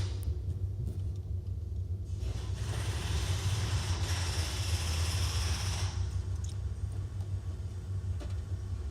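Steady low vehicle rumble, with a hissing rush about three seconds long in the middle.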